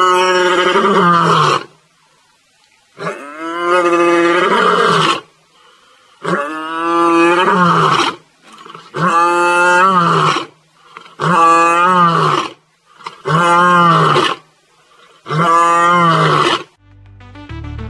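Male lion roaring: seven long, loud calls with about a second's pause between them, each dropping in pitch at its end, the later calls shorter than the first ones.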